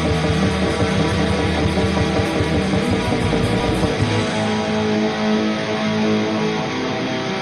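Heavy metal music with distorted electric guitar and bass. About four seconds in, the deep low end drops out, leaving held guitar chords.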